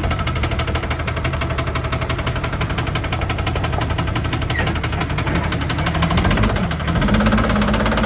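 6.7 Cummins inline-six turbodiesel running with a steady, fast knock from the bottom end, a failure bad enough that the engine needs replacing. The engine speed rises a little near the end.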